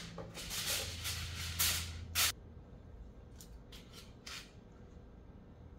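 Rustling and scraping handling noises: a run of swishes for about the first two seconds, then three short ones near the middle.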